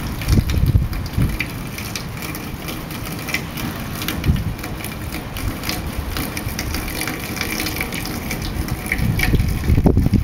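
Gusty wind on the microphone: uneven low buffeting over a steady rushing noise.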